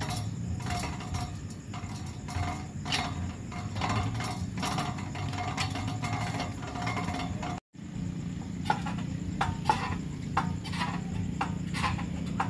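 Stainless-steel outdoor gym machines in use: irregular metal clicks and clinks from a hand-spun arm wheel, then from a leg-swing machine after a brief break, over a steady low hum.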